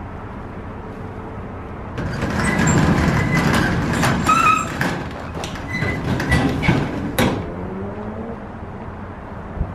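The unboxed metal exhaust being handled: about five seconds of clattering and knocks with brief metallic rings, over a steady low rumble.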